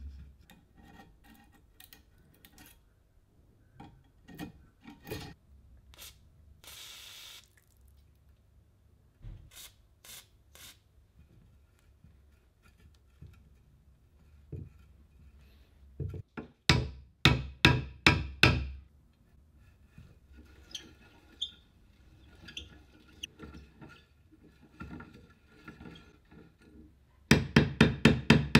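Hammer tapping on a hex key seated in a rusted set screw on a cast-iron drill stand, to shock the seized screw loose. A run of about eight sharp metallic strikes comes partway through and a quicker run of taps, about six a second, near the end, with small clinks and handling knocks in between.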